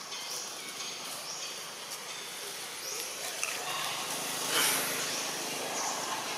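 Outdoor woodland ambience with short, high rising chirps recurring every second or two. A low hum joins about three seconds in, and a brief louder hissing burst follows a little past halfway.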